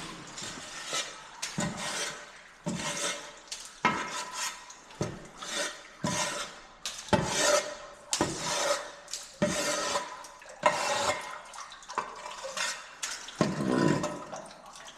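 Water being splashed and stirred in irregular surges, one or two a second, with a clattery edge, as the run-off dripping from an old conveyor belt is pushed to flow faster.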